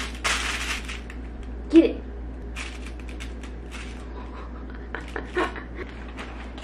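Crinkling and rustling of a woven plastic shopping bag and a fabric cat mat as a kitten pokes around them, in many small crackles. A brief vocal sound about two seconds in is the loudest moment.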